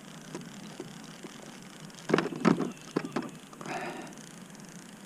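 A few sharp knocks and clicks, the loudest a quick cluster about two seconds in, then a short rustle, over a faint steady hiss.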